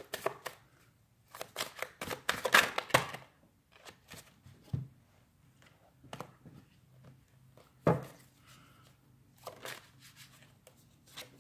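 A deck of tarot cards being shuffled by hand: a quick patter of card clicks, a denser run of clicks from about a second in lasting a couple of seconds, then scattered single snaps and taps as the cards are handled, one louder snap near the end.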